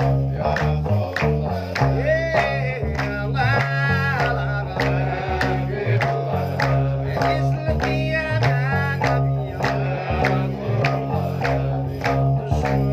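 Gnawa music: a guembri (sintir) plucked in a repeating low bass riff, with regular sharp percussive clicks on the beat and a man singing in between.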